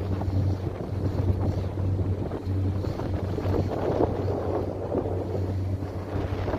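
A boat's engine droning steadily, with wind buffeting the microphone in uneven gusts.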